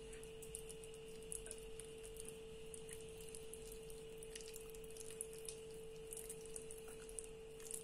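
Soft, irregular wet squelching and clicking of hands rubbing a thick paste-like marinade into raw leg of lamb, over a steady faint hum.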